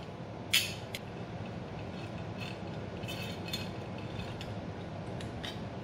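Aluminium bracket pieces being handled and fitted, with one sharp metallic clink about half a second in, then a few faint clicks and scrapes as a screw is started with an Allen key.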